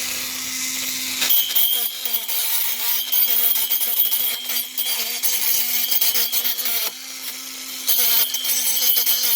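Small handheld electric rotary tool running steadily to clean caked grime off the concrete saw's engine parts. Its hum dips briefly several times as it is pressed against the work, over a high scratching hiss.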